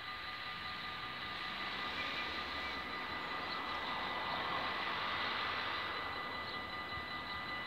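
Distant engine noise, a steady hum with a few faint constant whines, swelling a little in the middle and then easing off.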